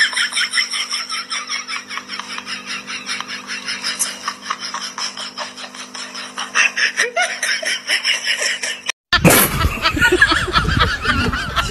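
A person laughing in a rapid run of snickering over a steady low hum, cut off suddenly about nine seconds in.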